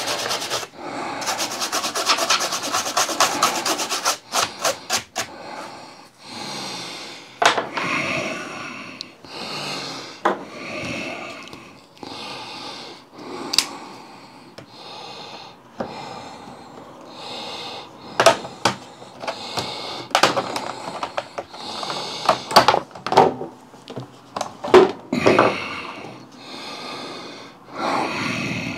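Hand work on the plastic underside of an Acer laptop: fast scraping at the vent grille for the first few seconds, then a tool worked along the bottom cover, with short scrapes and a series of sharp plastic clicks as the cover is pried off.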